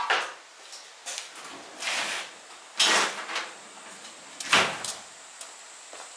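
A few short scuffing and clunking noises of hands-on work in a workshop, about a second apart, the loudest about four and a half seconds in.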